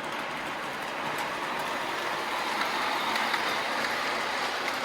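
O gauge model train locomotive running on three-rail tubular track: a steady whir and rumble of motor and wheels on the rails, growing slightly louder.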